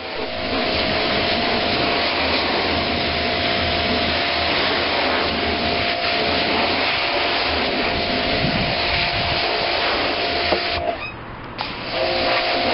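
Pressure washer running, its wand spraying a jet of water onto a plastic barrel: a steady hiss of spray over the machine's hum. The spray cuts off briefly about eleven seconds in and starts again a second later.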